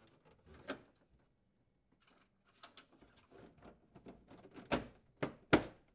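Plastic water reservoir access panel of a refrigerator being fitted into place: light clicks and rattles of plastic, then a few sharp snaps near the end as its mounting posts snap into their holes.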